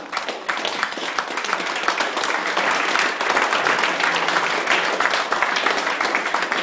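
A small crowd of onlookers applauding a completed heavy powerlifting squat, with dense clapping throughout.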